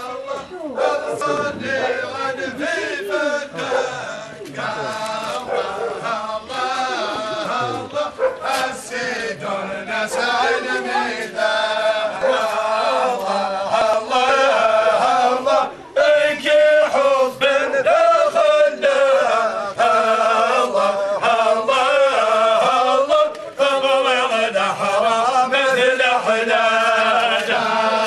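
Many men's voices chanting together in unison at a funeral. The voices rise and fall together and grow louder about halfway through.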